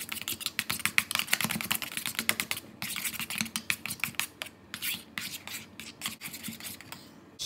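Metal spoon stirring a foamy glue and shaving-cream mix in a stainless steel bowl, clicking and scraping against the bowl many times a second. The strokes grow fainter in the second half.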